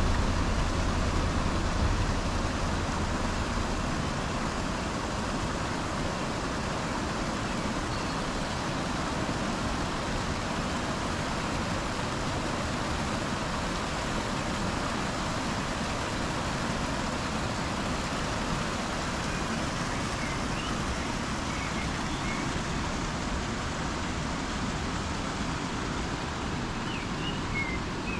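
Steady rushing noise of road vehicles, with a few faint high chirps near the end.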